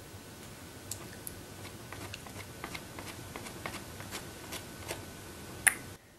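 Pastel stick scratching and tapping on paper as colour is worked in: a run of small, irregular ticks with one sharper click near the end, over a steady faint hiss.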